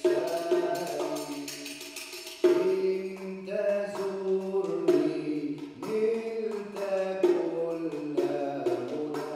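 Live Arabic ensemble music: an oud is plucked in a melodic line, with the jingles of a riq shaken and struck alongside it.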